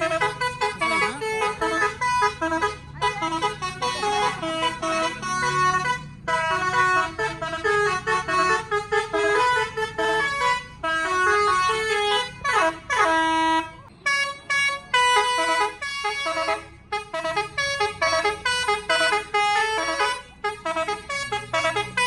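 Bus telolet: a DAF musical air horn playing a fast tune of short pitched notes, several trumpets sounding together. About twelve seconds in, one note slides steeply down in pitch.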